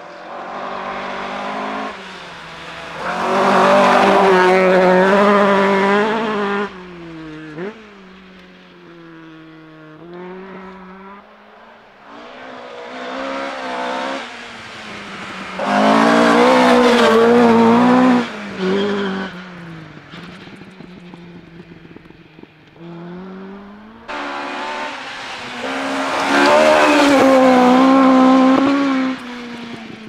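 Rally cars going by one after another on a gravel stage at full throttle: three loud passes, engines revving high, with pitch drops at gear changes and lifts. A car is heard approaching and dying away between passes.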